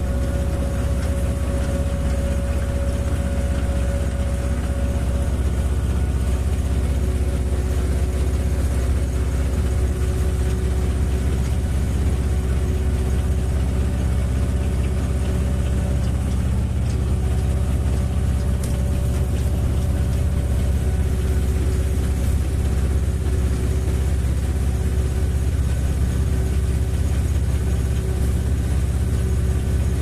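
Tractor engine running steadily at an even speed, heard from the trailer it is towing over a dirt road.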